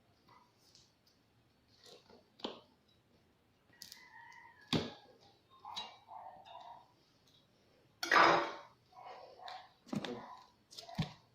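Handling noises while a package is unpacked: scattered knocks and clatter, with the loudest, a rustle, about eight seconds in.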